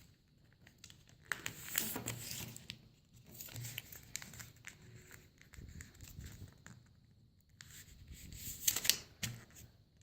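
Sheet of copy paper being folded and creased by hand: crinkling and rustling in short irregular bursts, the loudest about two seconds in and near the end.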